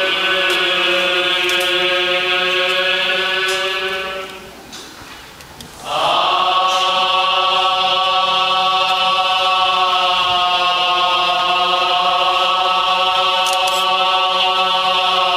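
Buddhist chanting in a Jodo Shinshu temple service, sung in long, drawn-out held notes. It breaks off for a breath about four seconds in and resumes with a rising note a couple of seconds later.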